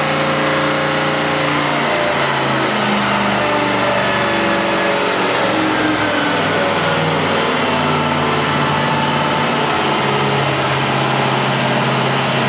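Marine Power 5.7 L Vortec-based V8 inboard marine engine running, its speed dropping from a raised idle back down to a low idle a couple of seconds in and then idling with small changes in pitch.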